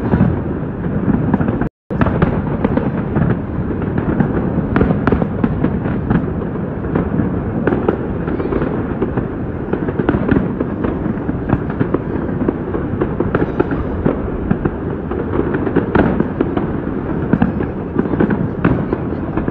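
Aerial fireworks shells bursting in a dense, continuous run of bangs and crackles. The audio drops out completely for a moment just under two seconds in.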